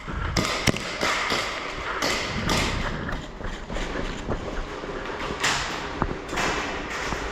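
Thuds and rustling of an airsoft player moving on foot in his gear, swelling about twice a second like footsteps, with a few sharp clicks.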